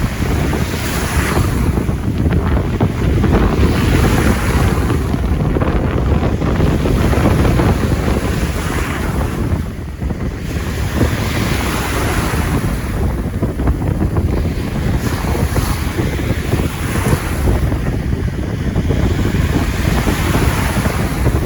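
Sea waves washing onto a beach, surging and falling away every few seconds, under a steady low rumble of wind on the microphone.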